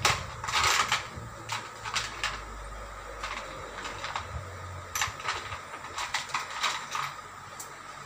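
Metal screwdriver clicking and scraping against the sheet-metal casing of a window-type air conditioner in short, irregular strokes. It is loudest in a scrape about half a second in, with a cluster of quick clicks from about five to seven seconds.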